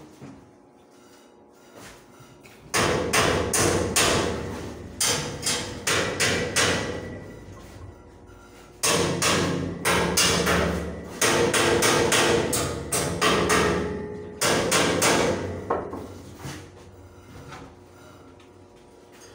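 Hammer blows on a steel-framed staircase, struck in five quick runs of several blows each, with a metallic ringing hanging on after the strikes. The runs stop about three seconds before the end.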